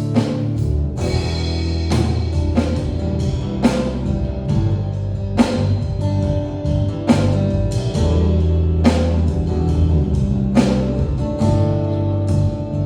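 Worship band playing an instrumental passage without singing: sustained chords over a strong bass, with drum hits every second or two.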